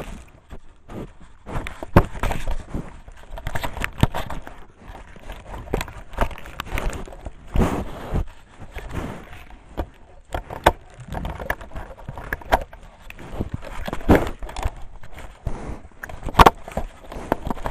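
Wild boar at a trail camera, nosing and pushing against it: irregular close knocks, clicks and scrapes on the camera housing, several sharp knocks standing out.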